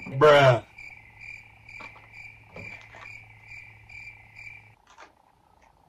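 A short voiced sound from a person at the start, then crickets chirping: one high chirp about two and a half times a second over a steady low hum. The chirping and hum cut off together about three quarters of the way through, like an added sound effect.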